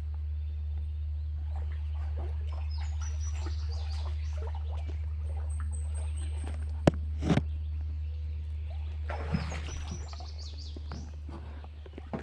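Underwater sound picked up by a hydrophone in a swimming pool: a steady low hum with faint high chirps and squeaks, a sharp click about seven seconds in followed by a short knock.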